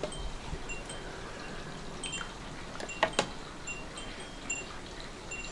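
Glass clinking as a measuring jug and small Weck glass bottles are handled while filling with tomato sauce: one clink near the start and a sharper pair about three seconds in. Faint short high pips recur irregularly in the background.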